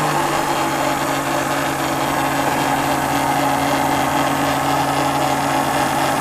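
Electric juicer-blender motor running steadily at one speed, a constant pitched hum, as it blends a milk, coffee and ice-cream mix.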